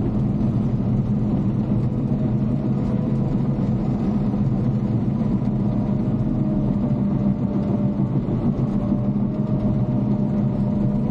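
Caterpillar D5 bulldozer's diesel engine running steadily while grading dirt.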